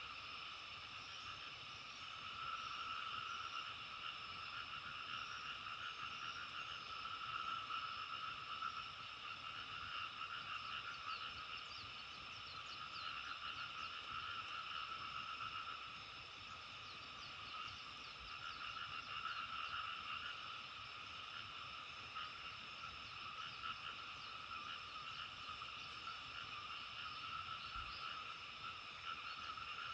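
A dense chorus of many frogs calling at once, a continuous mass of overlapping croaks that swells and eases slightly in loudness.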